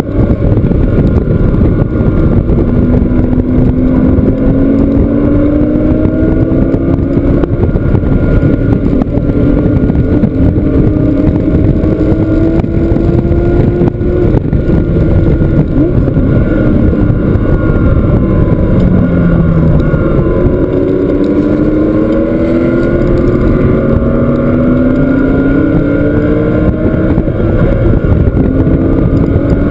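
Porsche flat-six engine under hard acceleration at track speed, its pitch climbing through each gear and dropping back at every upshift, with a falling sweep a little past the middle as it slows, then climbing again.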